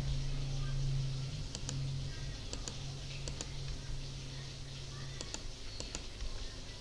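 Scattered computer mouse clicks and key taps over a steady low hum that stops about five seconds in.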